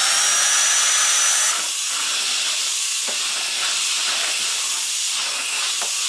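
Wollmer D707 Sapphire cordless stick vacuum running with its floor brush pushed over a laminate floor: a steady rushing hiss with a high whine that steps up in pitch about a second and a half in.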